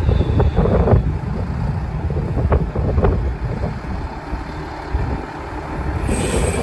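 A bus running past, its engine rumble mixed with wind buffeting the microphone, and a brief hiss near the end.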